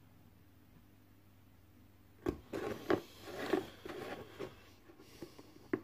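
Handling noise on a worktable: the clear dish of painted eyes and a paintbrush are clicked, knocked and slid about, in a cluster of sharp clicks and rubbing that starts about two seconds in, with one more sharp click near the end. A faint steady hum lies under it.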